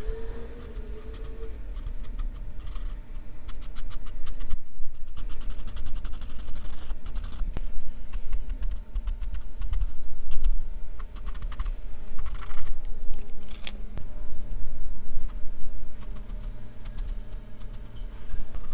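Graphite pencil and paper blending stump scratching and rubbing on sketch paper in quick, repeated strokes.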